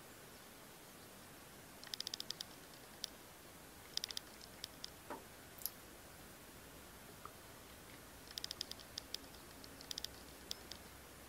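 Common wood pigeon pecking at bare soil: faint quick runs of light clicks from its beak, in several short bursts with single clicks between.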